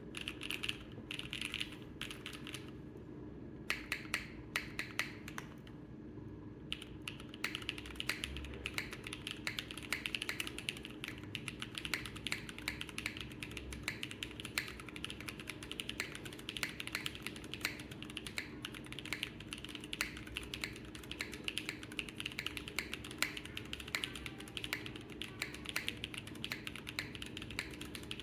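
Custom mechanical keyboard being typed on: a KohaKorn with Gateron Pure Sky switches under Cherry Vintage Black top housings, GMK ASCII keycaps, an aluminium plate and no foam. A few separate keystrokes at first, then steady fast typing from about six seconds in.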